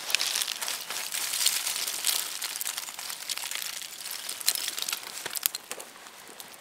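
Open fire of dry sticks burning, with a steady hiss and many quick, irregular crackles and pops.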